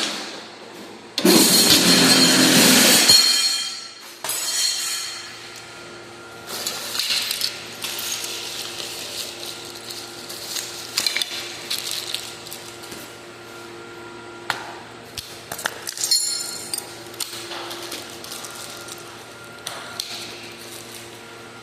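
Hand tools and metal hardware being worked while a garage door opener motor is fastened to its rail. A loud rough burst lasting about two seconds comes about a second in, followed by scattered clicks and clinks of metal parts.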